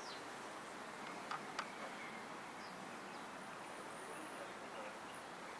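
Faint steady outdoor background noise, with two sharp clicks about a second and a half in and a few faint high chirps.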